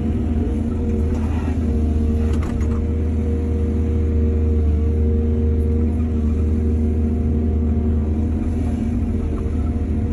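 Excavator's diesel engine running steadily at working speed, with a couple of brief clatters about a second and two and a half seconds in.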